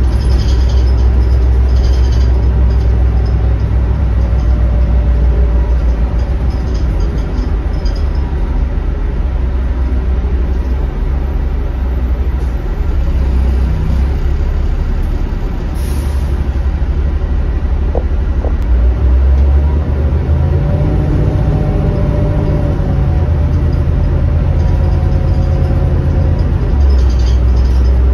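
Denning Phoenix low-floor bus's Caterpillar diesel engine and drivetrain heard from inside the cabin while driving: a steady, loud low drone with road noise. The engine note climbs about two-thirds of the way through, holds, then drops back near the end.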